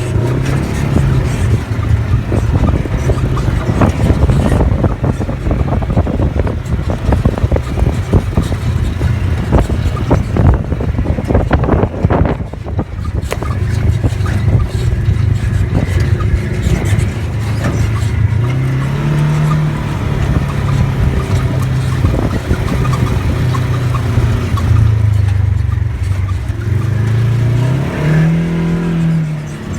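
Road vehicle's engine running under way, with rough road and wind noise; the engine pitch rises and falls twice, near the middle and again near the end.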